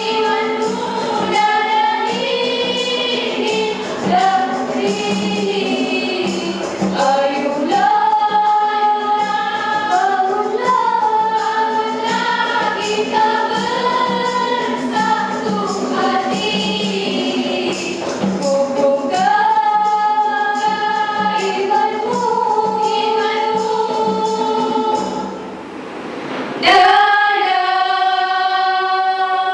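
A group of girls singing nasyid together into handheld microphones, in long held, bending sung lines. Near the end the singing drops away briefly, then comes back with a loud held chord.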